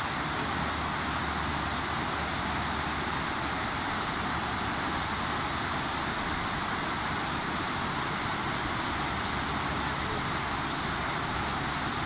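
Shallow mountain river rushing over a stepped weir and rocky rapids: a steady, even rush of white water.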